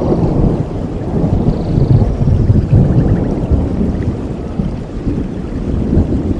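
Rain falling with a low rolling rumble of thunder that swells to its loudest about two to three seconds in.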